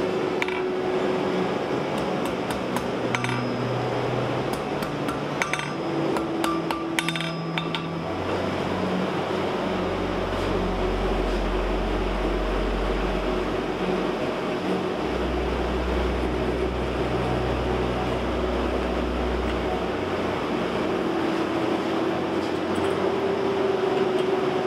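Irregular hammer taps and metallic clinks as red-hot steel bar stock is scrolled on an anvil, through roughly the first eight seconds. After that there are no strikes; sustained low tones that shift every few seconds, like an ambient music bed, take over.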